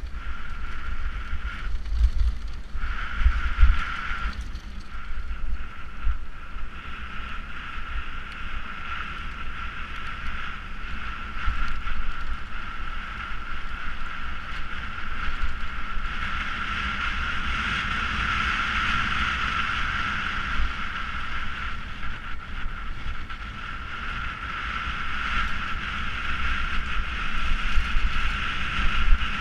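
Mountain bike running fast downhill on a dirt trail: wind buffeting the bike-mounted camera's microphone as a constant low rumble, with tyre and trail noise and a steady high-pitched buzz that drops out briefly a few times in the first seconds.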